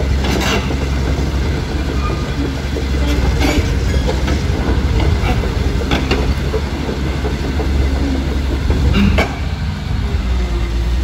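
Caterpillar 330D2 excavator's diesel engine running steadily as the machine tracks, with its steel track chains clattering and a few sharp metallic clanks.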